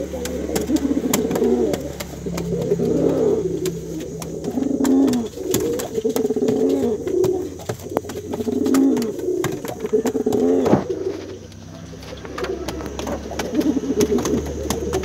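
Male domestic pigeon cooing over and over to call a female, each coo a low rising-and-falling note, with a short lull about two-thirds of the way through.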